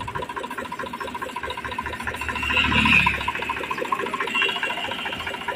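Spray paint hissing as the underside of a tractor trolley is spray-painted, over an even mechanical beat of about five a second. A louder low rumble swells briefly about halfway through.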